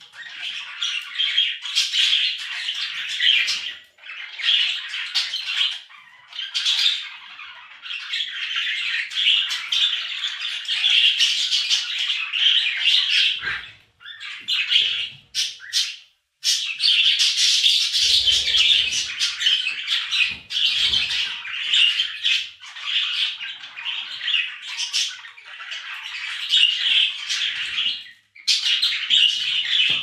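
Budgerigars chattering and warbling continuously, a dense run of quick chirps and squawks, breaking off briefly about halfway through. A few faint low thumps come shortly after the break.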